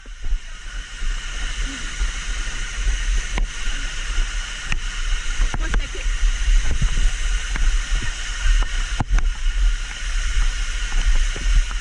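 Steady hiss of rushing water, with a low rumble of wind or handling on the action-camera microphone and a few sharp knocks.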